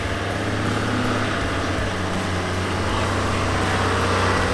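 Toyota Land Cruiser 80-series engine running steadily under load as the 4x4 crawls up a steep dirt slope, growing slightly louder as it comes closer.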